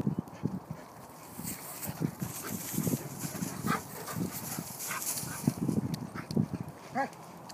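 Several dogs running and playing on a dirt path through dry grass: irregular footfalls and rustling, with a few short high dog yelps, the clearest about seven seconds in.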